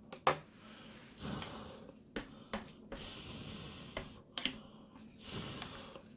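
Instant ramen noodles being slurped and eaten: three long slurps with sharp mouth clicks and smacks between them.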